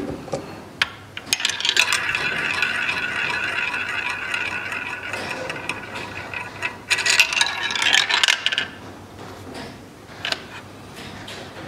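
Small balls rolling and rattling down the tracks of a ball drop toy: a long stretch of rattling, then a shorter, louder burst a second or so later, with a few single clicks.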